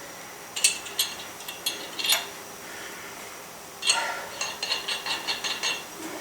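Metal hand tools clinking against lug nuts and sockets in the first two seconds, then a clink followed by a quick run of about ten clicks from a wrench working a lug nut.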